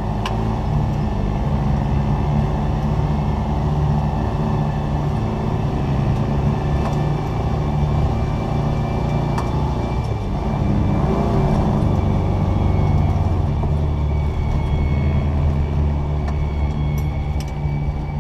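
Engine of an off-road vehicle running under load as it drives across sand dunes, with a few sharp knocks from the vehicle along the way.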